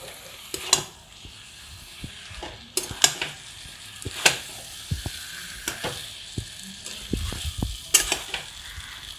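Flat spatula stirring and scraping boiled mixed dal through frying masala in a metal kadai, with irregular clinks and knocks of the spatula on the pan over a steady sizzle. The dal is being fried with the spices.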